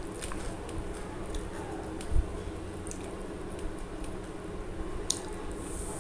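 Fingers squishing and mixing soft rice pulao on a steel plate, with scattered small clicks and one dull thump a little over two seconds in.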